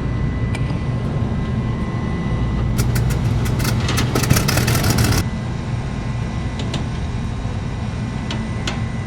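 Steady low hum of running refrigeration equipment. For about two seconds in the middle, a rapid rattling clatter that stops suddenly, as the mounting screws of the old low-pressure switch are backed out, followed by a few light clicks of handling.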